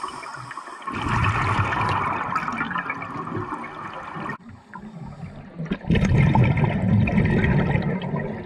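Scuba diver breathing through a regulator underwater: exhaled air bubbling out of the regulator in two long bursts, the first about a second in and the second about six seconds in, with a quieter gap between.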